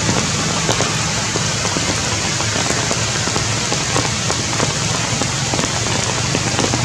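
Heavy rain falling steadily: a dense hiss dotted with many sharp drops striking close by.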